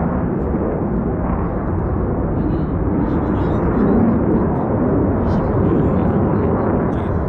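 Steady roar of KAI T-50 jet aircraft flying an aerobatic display, swelling a little about four and six seconds in.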